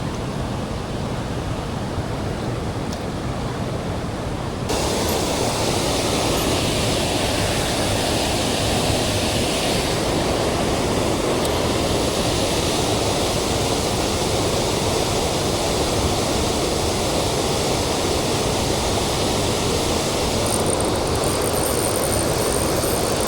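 Mountain stream water rushing steadily over rocks, a continuous hiss; it turns brighter and a little louder about five seconds in.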